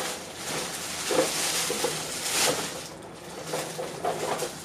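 Clear plastic packaging rustling and crinkling as hands dig into a bag of boxed items and pull one out, busiest over the first three seconds.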